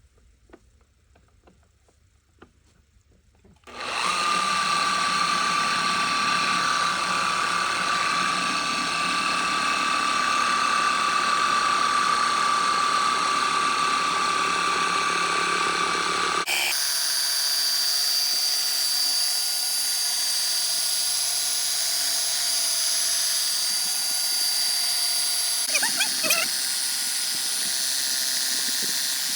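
Electric Flex polisher with a foam pad buffing gel coat: the motor starts suddenly about four seconds in and runs steadily with a whine. About halfway through, the sound changes abruptly to a higher-pitched whine.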